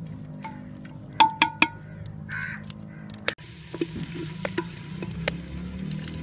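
Chopped onions frying in oil in a clay pot while being stirred: three sharp, ringing clinks of the spoon against the pot about a second in, then steady sizzling with scattered scraping clicks from the stirring. The onions are being browned lightly in the oil.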